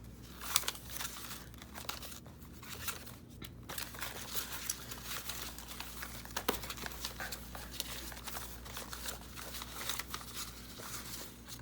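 Paper ephemera rustling and crinkling as it is sorted through by hand, with a few sharper clicks and taps among the rustles.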